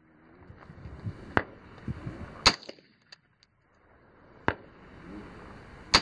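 AR-15 rifle fired in single shots, four sharp cracks spaced one to two seconds apart, the last near the end.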